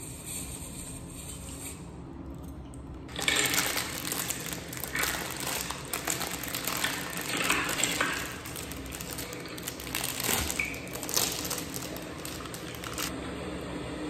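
Plastic food wrapper being torn and crinkled open by hand, a dense crackling rustle that starts about three seconds in and stops shortly before the end.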